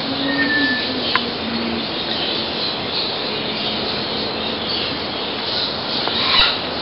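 Steady background hiss, with a short faint high tone about half a second in and a single click just after a second.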